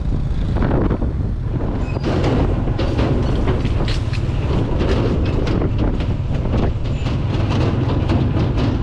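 A moving vehicle heard from on board: a steady low rumble with rapid, repeated rattling clicks.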